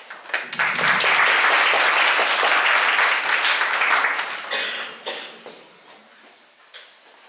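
Audience applauding, starting about half a second in and dying away about five seconds in. Then a quiet room with a few light knocks.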